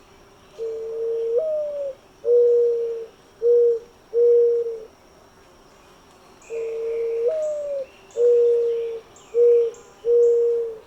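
Mourning dove singing its mournful cooing song twice: each phrase is a long coo that swoops up and slides down, followed by three shorter, level coos.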